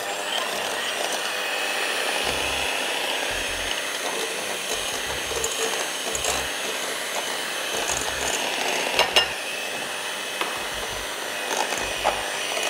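Electric hand mixer running steadily, its beaters creaming butter and powdered sugar in a glass bowl. A couple of sharp clicks come about two-thirds of the way through.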